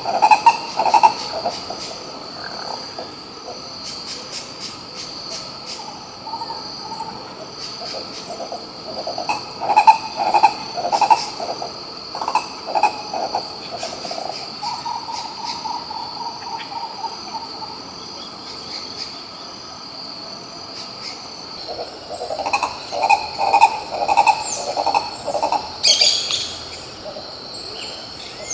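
Green ibis calling in bouts of rapid, rolling low notes, repeated several times, over a steady high insect drone.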